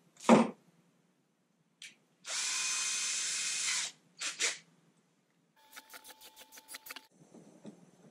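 A Ryobi cordless drill runs steadily for about a second and a half with no load. A quick, even run of clicks follows as its keyless chuck is tightened onto a tiny drill bit. A sharp knock comes just after the start.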